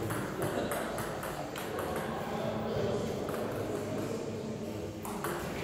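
Table tennis rally: a celluloid ball is struck back and forth by rubber-faced paddles and bounces on the table, giving a series of sharp, irregular clicks.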